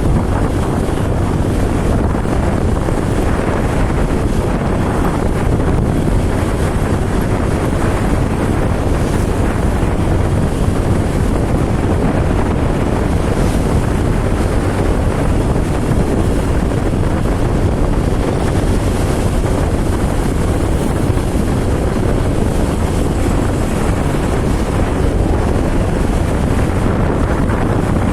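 Steady wind buffeting the microphone over the low, even drone of a vehicle travelling on the road.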